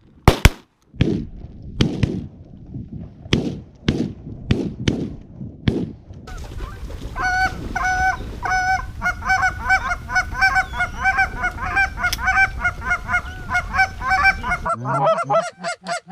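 A rapid volley of shotgun blasts in the first six seconds, some sharp and some duller. Then many geese honk at once, a dense, continuous clamour that carries on to the end.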